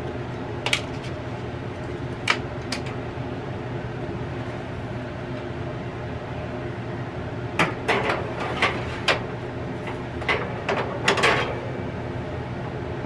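Several sharp metal clicks and clatters as a countertop air fryer oven's glass door is opened and a baking pan is slid onto its wire rack, over a steady low hum. A few light clicks from a plastic water bottle being handled come earlier.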